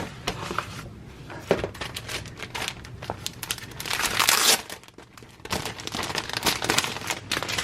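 Packaging crinkling and rustling as doll clothes are handled and unwrapped, in irregular crackles with a louder stretch about four seconds in.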